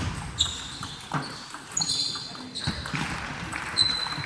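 Table tennis rally: the celluloid-type ball clicks sharply off the bats and the table in a quick series of hits, several with a short high ping.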